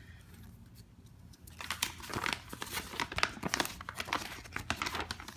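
Paper rustling and crinkling as the game's rule book is handled and looked through, starting about one and a half seconds in as a dense run of irregular crackles.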